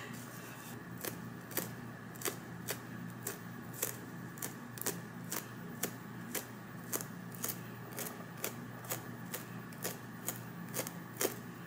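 Stainless slant-tip tweezers clicking shut about twice a second, each click a hair being plucked from a wig's lace frontal.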